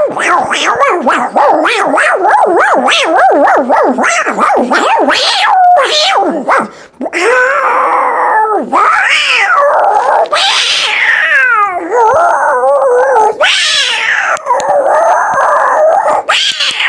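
A man's voice imitating two cats fighting: quick, close-packed yowls and growls for the first few seconds, then longer wailing cries that slide up and down in pitch.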